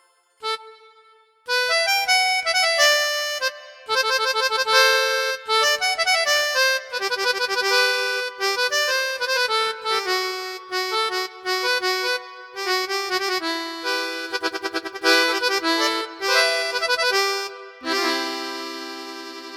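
Melody played live on a keyboard through a sampled instrument sound in Reason, a quick run of single notes in a cumbia style. A short note sounds near the start, then after a brief gap the notes run on without a break.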